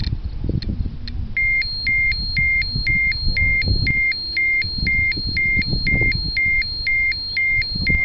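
Ecotest Terra-P (MKS-05) radiation dosimeter giving a few single clicks, then from about a second and a half in beeping steadily, short high beeps about twice a second: its dose-rate alarm, set off as the reading climbs past the threshold toward about 1 microsievert per hour. Low rumbling noise on the microphone lies under it.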